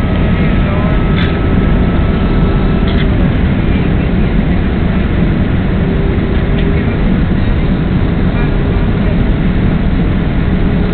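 Steady cabin roar inside a Boeing 767 on descent, engine and airflow noise heard through the fuselage. A faint high whine stops about three seconds in.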